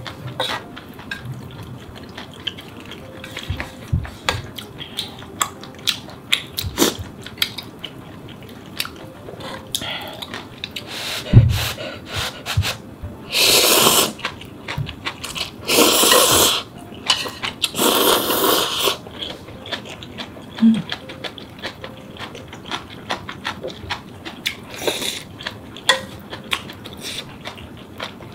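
Close-miked eating of ramen noodles: many short clicks and wet mouth smacks of chewing and chopsticks, with three loud slurps of noodles a little past halfway.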